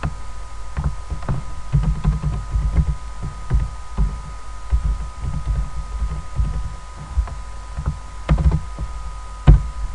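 Computer keyboard typing heard as a run of irregular dull knocks, with a steady faint electrical whine underneath; one sharper, louder knock near the end.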